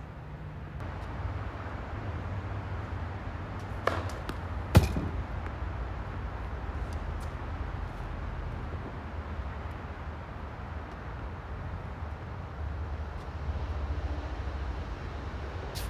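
Steady low rumble, with two sharp knocks of a tennis ball about four seconds in, a second apart, the second louder.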